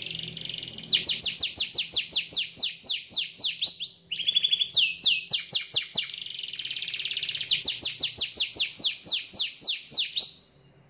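Domestic canary singing in long runs of quick, falling whistled notes, about five a second, broken by short buzzy trills. The song stops just before the end.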